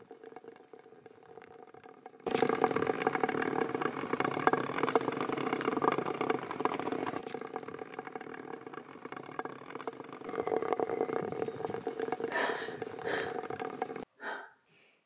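A loud, steady, rattling mechanical noise starts suddenly about two seconds in and cuts off abruptly near the end.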